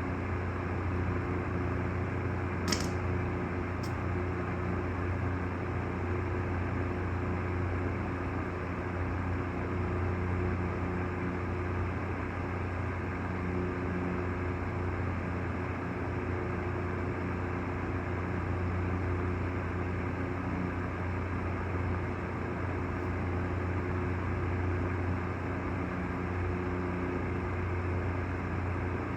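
Steady machine hum with a few fixed low tones, unchanging throughout, broken only by two short clicks about three and four seconds in.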